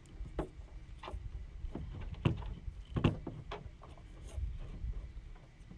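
Irregular clicks and knocks of hand handling: strands of plastic beads and a painted stick bumping on a table while a string is knotted onto the stick, over a steady low rumble.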